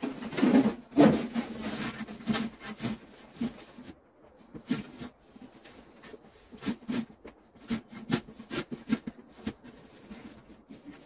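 A snow sleigh shovel scraping and pushing through packed snow, loudest in the first two seconds, followed by a string of short crunches of boots and the shovel in the snow, about one or two a second.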